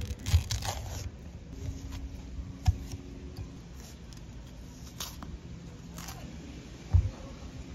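Kitchen knife knocking on a wooden cutting board while cutting and peeling a saba banana: two sharp knocks at the start, another about two and a half seconds in and one near the end, with quieter peel-handling clicks and rustles between.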